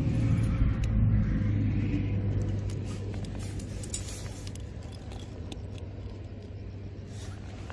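A passing road vehicle's low engine rumble, loudest in the first two seconds and then fading away. A few light clicks come in the middle.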